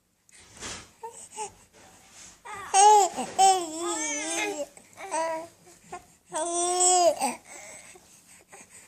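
Four-month-old baby babbling and cooing in high-pitched vocal sounds: a wavering run about three seconds in, a short call around five seconds, and a long held squeal near seven seconds.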